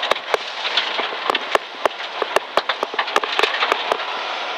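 Gravel and dirt thrown up by the tyres hitting the underside and wheel wells of a Dodge Neon SRT4 rally car at speed on a dirt stage: many sharp ticks and knocks, several a second, over a steady rushing road noise.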